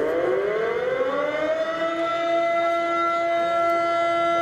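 Warning siren winding up, its pitch rising for about two seconds and then holding one steady tone. It is sounded before the launch of the three-shaku (shōsanjakudama) shell.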